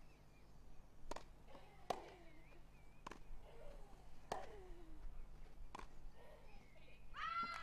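Tennis rally on a grass court: sharp racket strikes and ball bounces about once a second. Near the end comes a short high-pitched call.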